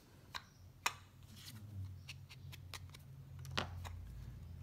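Scattered light clicks and taps of small papercraft tools and supplies being handled and set down on a cutting mat, over a low steady hum.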